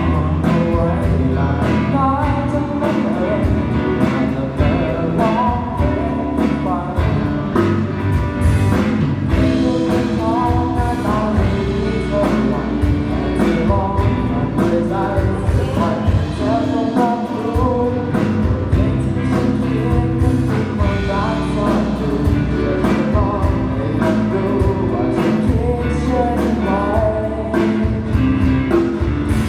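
A singer performing a song over band music, with a steady drum beat and guitar.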